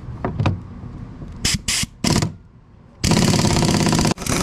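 Pneumatic impact wrench (air gun) on a bolt: a few short trigger bursts, then about a second of continuous rapid hammering that cuts off briefly near the end and starts again. The air gun is called pitiful, too weak for the job.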